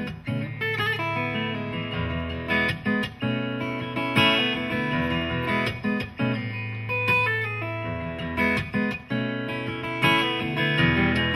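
Solo acoustic guitar played fingerstyle: a picked melody over held low bass notes, each note starting with a sharp pluck.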